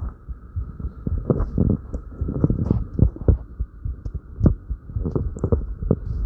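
A person's fast heartbeat, raised by light exercise: a quick run of low thuds, many in close-spaced pairs, with a faint steady hum underneath.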